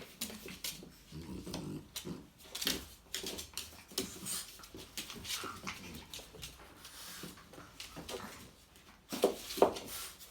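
A French bulldog and a Chihuahua playing together: low dog vocal noises mixed with irregular scuffling and short knocks, with the loudest knocks about nine seconds in.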